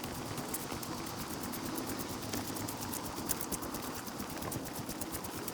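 Footsteps of a person walking on an outdoor path, heard as a steady, dense run of quick clicks and rustling.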